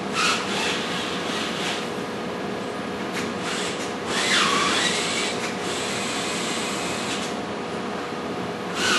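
Large paper template rustling and crinkling as it is held up and shifted against a wall, in several spells, over a faint steady hum.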